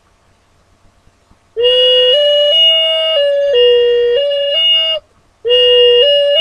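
A six-hole ocarina being played in short runs of notes stepping up and down, with a thin steady whistle above them. It is being test-played during retuning. The first run starts about one and a half seconds in and stops near five seconds, and a second run begins just after.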